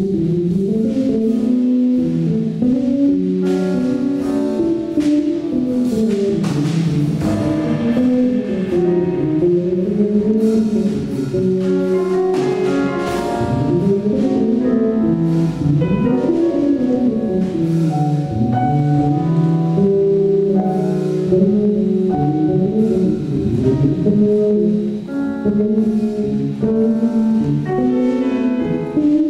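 Small jazz ensemble with electric bass and drums playing live, a melodic line weaving up and down without a break over the rhythm section, with cymbal strokes throughout.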